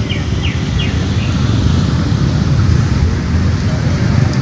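A steady low rumble, with a bird giving a quick series of about four short, downward chirps in the first second or so.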